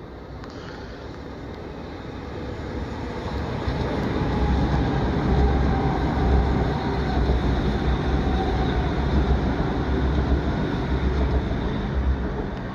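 A Southern passenger multiple-unit train approaching and passing underneath. Its running noise grows louder over the first four seconds or so, holds loud and steady, then cuts off suddenly at the end.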